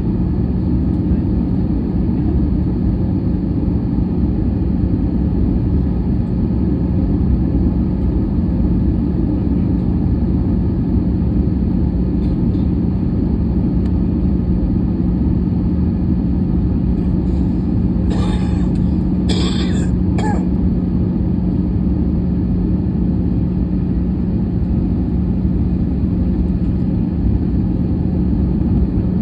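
Cabin noise inside an Airbus A320-214 in flight: the steady roar of its CFM56 engines and the airflow over the fuselage, with a constant low hum. A few short, sharper sounds come about two-thirds of the way through.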